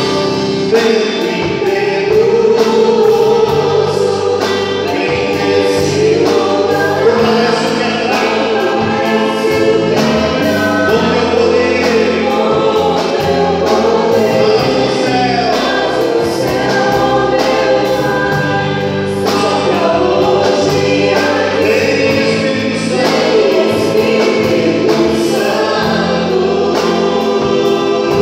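Live worship music: several singers singing together through microphones, with guitar and keyboard accompaniment.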